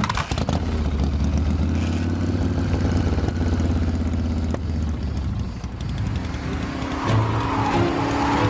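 An old single-cylinder-style motorcycle engine catches with a sharp onset, runs steadily and fades as the bike pulls away. About seven seconds in, the engine of a Mercedes-Benz SL sports car comes in as the car approaches.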